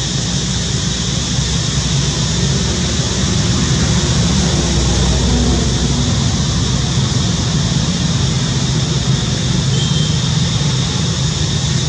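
Steady background noise: a low rumble under a high hiss, with no distinct events.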